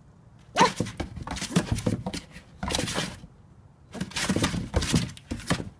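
Paws scuffling and scratching on a cardboard box in three scratchy bursts, about half a second in, near the middle and toward the end, as a puppy and a cat move against it.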